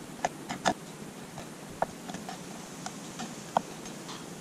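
Kitchen knife tapping on a wooden cutting board in a few sharp, irregular clicks as shrimp heads and tails are cut off, with pieces scraped into a ceramic bowl.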